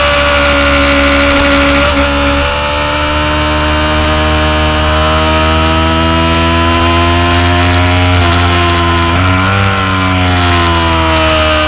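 Kawasaki Ninja 250R's parallel-twin engine running hard at high revs under way on track, its pitch climbing slowly through the middle, dipping briefly twice about eight and nine seconds in, then falling near the end.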